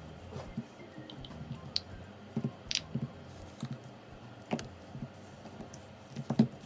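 Irregular light clicks and soft taps, a few each second.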